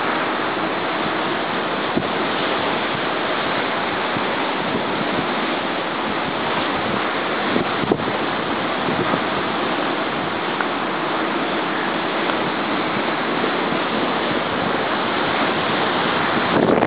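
Rough, stormy sea surf churning and breaking, heard as a steady rush, with wind buffeting the microphone.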